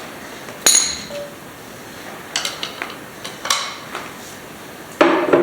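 Metal hand tools clinking and clanking as they are handled, likely while setting up to drain the engine oil. A sharp, ringing clink comes about a second in, then a few lighter clicks, and a louder clank near the end.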